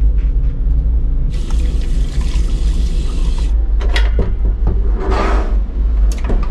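Train toilet flushing: a rush of hiss starts about a second after the flush button is pressed, lasts about two seconds and cuts off sharply. The moving train rumbles steadily underneath, and a few knocks and clicks follow near the end.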